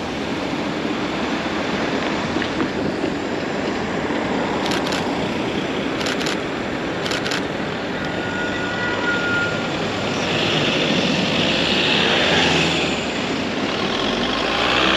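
Steady city traffic noise, with a Nikon DSLR's shutter clicking in three short groups about five, six and seven seconds in, the shutter button held down. The traffic grows louder about ten seconds in as a vehicle passes.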